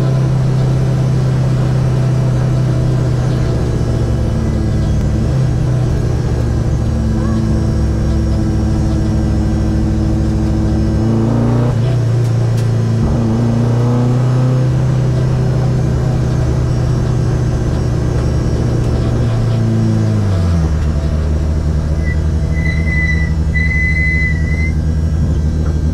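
Race car engine running steadily at low speed, heard from inside the stripped-out cockpit. Its pitch drops twice, about eleven and twenty seconds in. Near the end come a few short, high electronic beeps.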